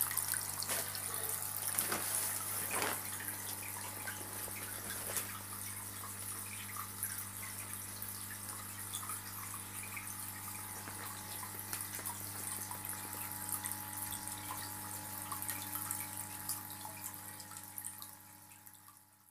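Aquarium water bubbling and trickling with aeration, full of small ticks and splashes, over the steady low hum of the aquarium pump; it fades out near the end.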